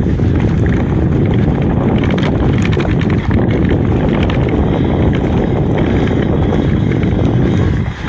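Mountain bike riding down a rough trail: a steady rush of wind on the microphone over tyres rolling and the bike rattling, with a few sharp knocks about two to three seconds in.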